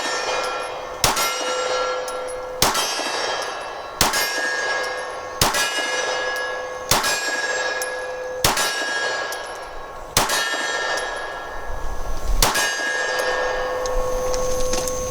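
Steyr M9A1 9mm pistol fired in slow aimed shots, about one every one and a half seconds. Each shot is followed by the ringing clang of a steel IPSC target being hit at 25 yards.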